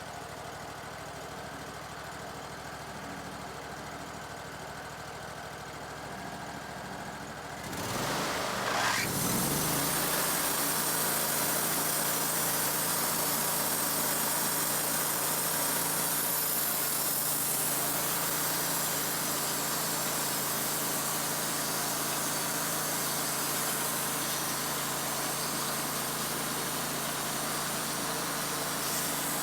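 Wood-Mizer LT35 bandsaw mill's engine running steadily at low speed; about eight seconds in it revs up with a rising whine and the band blade runs into the cedar block, a loud steady sawing noise over the engine hum for the rest.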